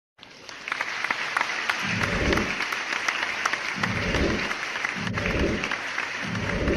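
A crowd of people applauding, with many individual claps, starting suddenly just after the start. Low thuds recur every second or two underneath.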